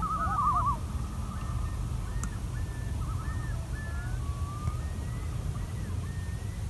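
Common loons calling across a lake: a quickly wavering tremolo call in the first second, then fainter short rising-and-falling calls, over a steady low rumble. A single sharp click about two seconds in.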